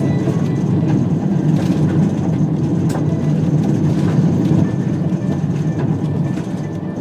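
Steady, loud low rumble of a running vehicle, with no change in pace.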